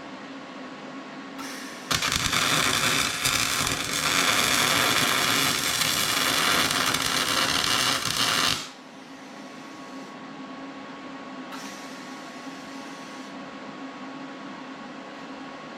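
A loud, harsh burst of metalworking on a steel grader blade, about seven seconds long, starting about two seconds in and stopping abruptly, over a steady electrical hum.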